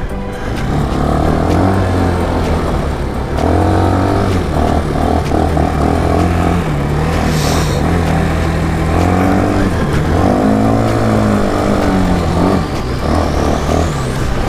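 Bashan 250 quad bike's engine running under way, its revs rising and falling as it is ridden over a gravel track. There is a brief hiss about halfway through.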